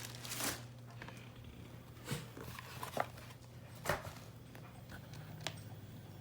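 A Mr. Heater Buddy propane heater's piezo igniter clicking a few times at uneven intervals while the pilot is being lit. The clicks sound over a steady low hum.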